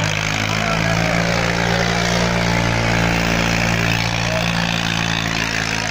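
Swaraj 855 tractor's three-cylinder diesel engine running steadily and loud while the tractor spins balanced on its rear wheels in a wheelie stunt.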